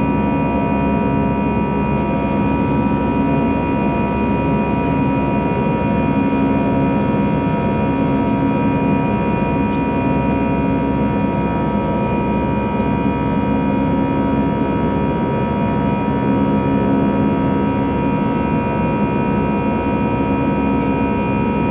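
Airbus A320-214 cabin noise while climbing after take-off: the CFM56-5B turbofan engines running steadily over a low rush of air, with several steady tones and a low hum that swells and fades every few seconds.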